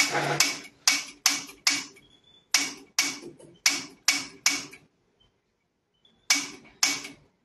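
Gas boiler's ignition clicking repeatedly as its control knob is worked: about a dozen sharp ticks, two or three a second, with a pause of over a second before a final pair.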